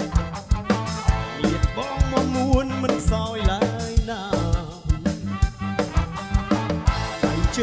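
Background music: a song with a singing voice over a steady drum-kit beat.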